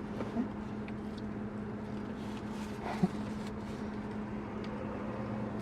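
A steady low mechanical hum with a constant tone, and a single short click about three seconds in.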